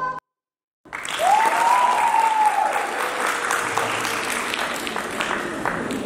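Recorded dance music cuts off, and after a short silence an audience breaks into applause, a dense clapping that slowly fades. A single voice whoops over the clapping about a second in, rising and then falling in pitch.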